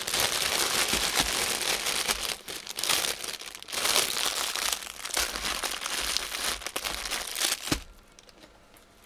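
Clear plastic bag full of small bagged diamond-painting drills being handled, crinkling steadily, with a short knock about three-quarters of the way through as the crinkling stops.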